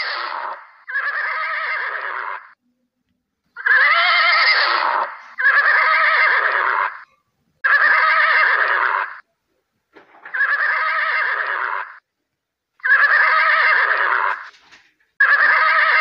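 A horse neighing again and again, about eight whinnies each lasting a second and a half, with silent breaks between them.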